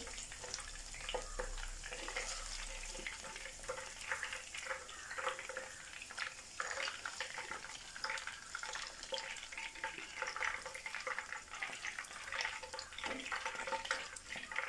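Chicken pieces crackling and sizzling as they deep-fry in hot oil in a wok, turned and lifted with a wire spider strainer and a slotted spoon.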